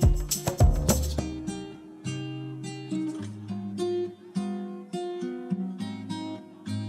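Background music of acoustic guitar, plucked and strummed. A louder passage with a strong regular beat stops about a second in.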